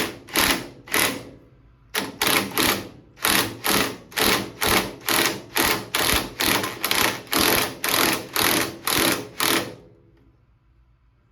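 A hand ratchet is turning the forcing screw of a steering-wheel puller in quick back-and-forth strokes. Each stroke gives a short burst of ratchet clicks, about two and a half a second. There is a pause about 1.5 seconds in, and the sound stops near the end.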